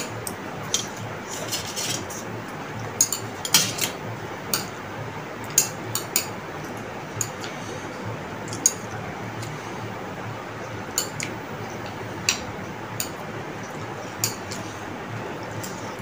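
Metal chopsticks clicking and tapping against ceramic plates while noodles are picked up. The clinks are short and come at irregular moments, more often in the first half.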